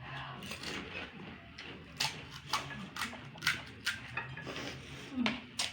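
Eating noises: a run of sharp crunches and clicks, about two a second, from crisp fuchka shells being bitten and chewed, with light clinks of bowl and spoon.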